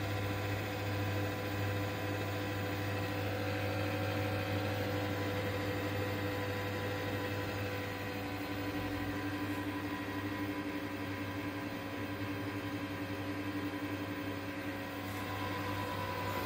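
Desktop PC cabinet fans running with a steady whir over a low hum, the loud fan noise that, it is said, stops by itself within a minute or so after switching on.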